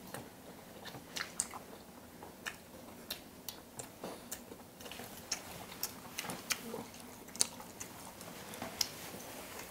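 Close mouth sounds of people chewing bites of cooked tiger prawn: soft smacking with irregular small crunches and clicks.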